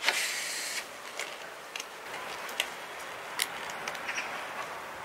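Black disposable nitrile gloves being pulled onto hands: a short rustle at the start, then a series of sharp clicks and snaps as the stretched glove material slips over the fingers.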